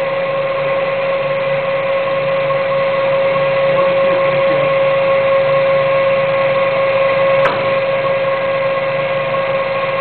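A machine running steadily, with a constant whine over a hum and a soft regular pulsing. There is a single sharp click about seven and a half seconds in.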